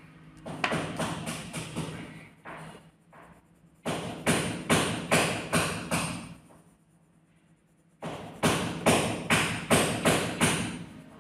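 Three runs of sharp thuds or knocks, about two to three a second, each run a couple of seconds long with short pauses between; the later two runs are the loudest.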